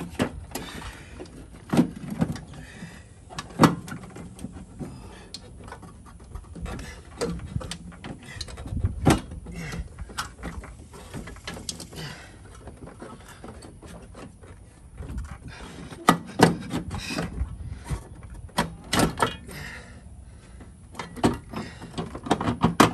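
Irregular metal knocks, clunks and scrapes of a car's power brake booster being worked into place against the firewall by hand, with a few sharper knocks scattered through.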